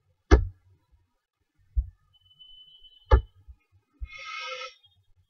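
Two sharp clicks about three seconds apart, with soft low thumps between them, then a short buzzy sound about four seconds in.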